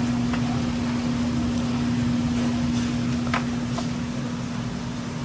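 Steady machine hum with a constant low tone, with a few faint clicks and knocks over it.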